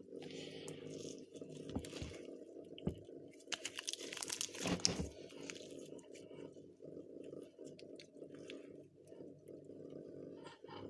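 Homemade glue-and-laundry-detergent slime being squished and kneaded by hand, giving irregular wet crackles and small pops, busiest about four to five seconds in.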